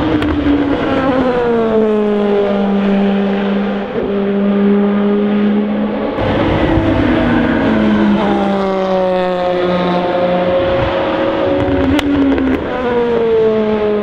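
Endurance racing cars passing at speed, one after another. Each engine note slides down in pitch as the car goes by, with new cars arriving about six seconds in and again near the end.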